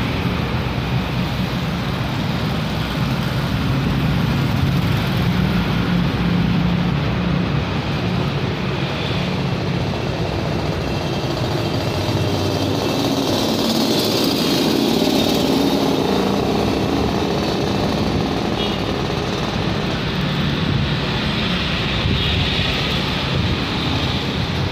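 Steady motor vehicle engine noise with a constant low hum, growing somewhat louder and fuller around the middle.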